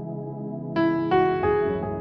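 Ambient background music: a sustained synthesizer pad, with three struck keyboard notes rising in pitch about a second in, each ringing and fading.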